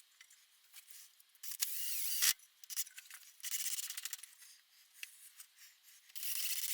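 Hand scraping strokes on old furniture wood, in three short rough bouts with a sharp click about two seconds in.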